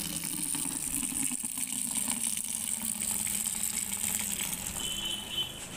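Water running from a tap in a steady stream into a plastic bucket, splashing into the water already in it; the splashing thins a little near the end.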